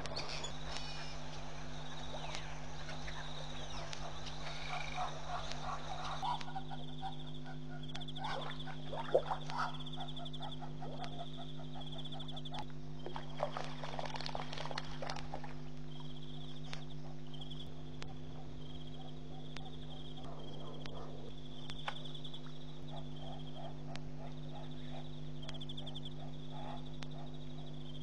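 Night-time bush ambience: a high, pulsing trill about a second long repeats again and again from calling night creatures, over a steady low electrical hum. The first few seconds hold a noisier daytime outdoor background with a few faint chirps.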